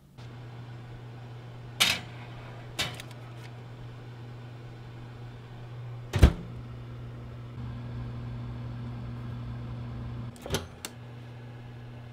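Countertop oven running with a steady low hum, joined partway through by a slightly higher hum. Several sharp clicks and knocks break through it, the loudest about six seconds in.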